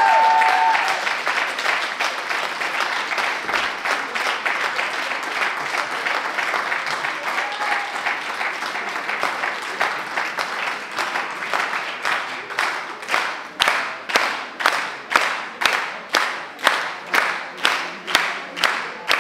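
Audience applauding as the dance music's last chord cuts off. About halfway through, the applause settles into clapping in unison, about two claps a second.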